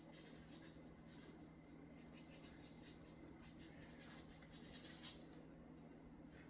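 Near silence: faint, irregular scratching over a steady low hum, with one slightly louder scratch about five seconds in.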